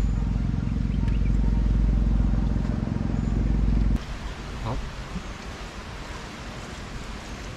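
A motor engine running steadily with a low, even rumble, which cuts off suddenly about halfway through. After that there is a softer hiss of wind and water.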